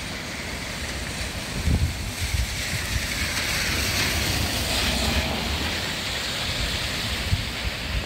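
Swollen, flooding river rushing past in the rain, with gusts of wind buffeting the microphone. A hiss swells and fades in the middle.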